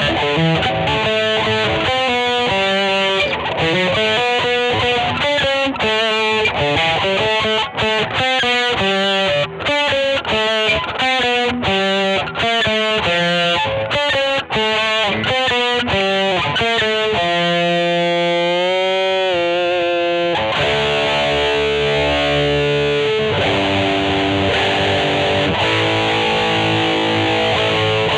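2003 Godin SD 24 electric guitar played with a distorted tone: quick single-note runs, then a long held note with vibrato from about two-thirds of the way in, giving way to sustained chords near the end.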